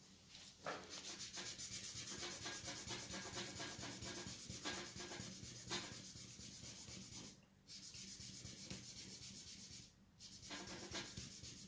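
Dental cotton roll rubbed back and forth in rapid short strokes over oil pastel on drawing paper, blending the colour. A steady scrubbing that pauses briefly twice, about seven and a half and ten seconds in.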